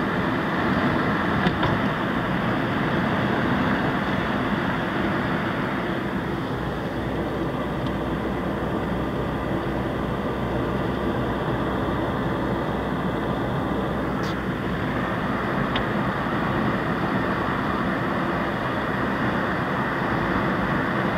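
Car driving at steady speed, heard from inside the cabin: a continuous blend of engine and tyre-on-road noise.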